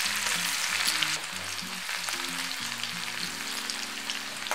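Crushed garlic and cumin seeds sizzling in hot oil in a kadhai, with a steady hiss that eases a little after about a second. A ladle stirs the pan near the end, under faint background music.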